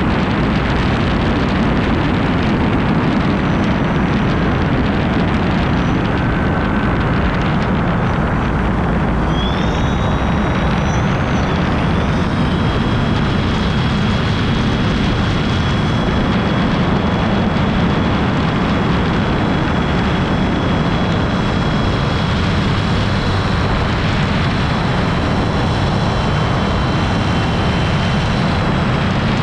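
Electric HPD20 motor turning the pusher propeller of a motorised hang glider trike in flight. It makes a steady low rush with a thin high whine. The whine rises about a third of the way in and then holds steady.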